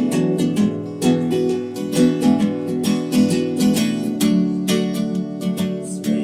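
Acoustic guitar strummed in a steady rhythm, an instrumental passage between sung lines of a song.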